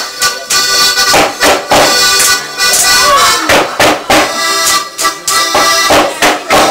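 Tyrolean folk dance music with steady held chords, cut through by loud, sharp strikes several times a second from the bench dancers.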